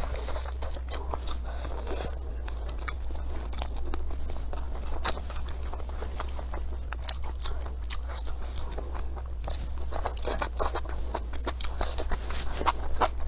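Close-up eating sounds: crunchy velvet antler mushrooms and chicken being bitten and chewed, with chopsticks clicking and scraping on the plate. The crunching grows denser near the end as rice and mushrooms are shovelled in from the raised plate. A steady low hum runs underneath.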